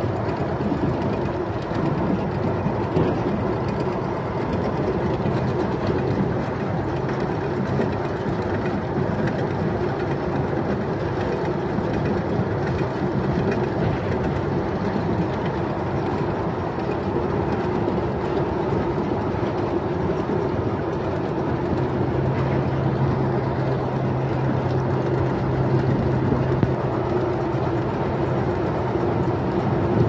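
Log sorting line's chain conveyor running: a steady mechanical noise with a constant hum, and a second, lower hum joining about two-thirds of the way through.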